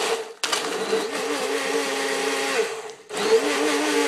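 Hamilton Beach personal blender running, chopping ice cubes into a shake. It cuts out briefly about half a second in and again near three seconds in, starting again each time, and its pitch wavers after each restart.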